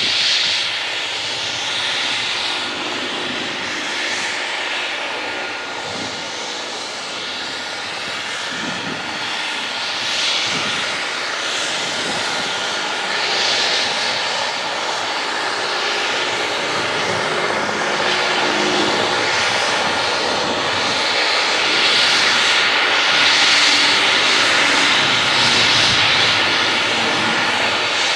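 Leonardo AW139 helicopter running on the ground with its twin Pratt & Whitney PT6C turboshaft engines turning the rotors: a steady turbine whine under rotor noise. A hissing upper band swells and fades every couple of seconds, and the sound grows slightly louder in the second half.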